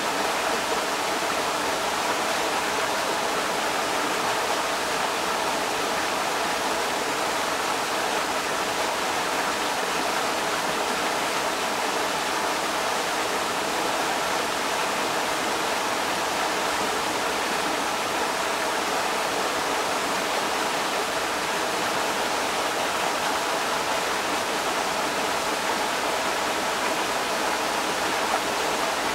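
Creek water rushing steadily over rocks, a constant even rush with no breaks.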